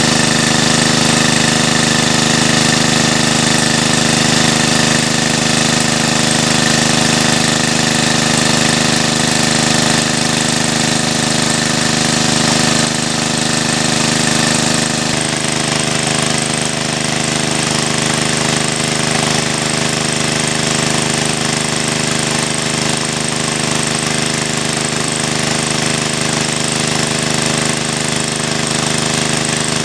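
Engine-driven water pump running steadily at constant speed while it drains the pond, its discharge pipe gushing water. Its tone shifts slightly about halfway through, then holds steady again.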